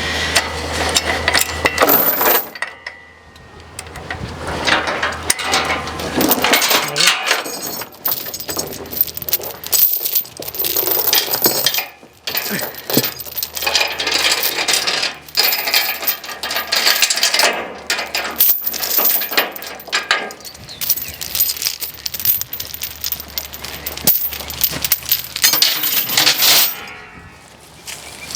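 Irregular metallic clinking and rattling over a steady low hum, with several short pauses.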